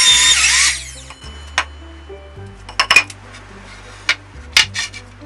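A power tool runs loudly with a high whine and stops about a second in. Sharp knocks and clicks of tool work follow, over background music.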